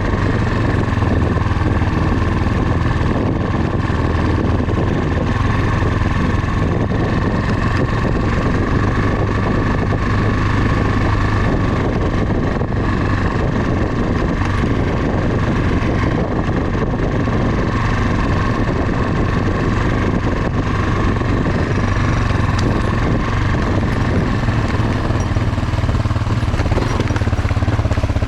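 Motorcycle engine running steadily as the bike is ridden at an even, unchanging pace.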